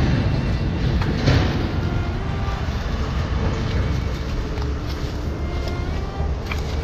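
Steady low rumble of road traffic, with a few crunching footsteps in dry leaves.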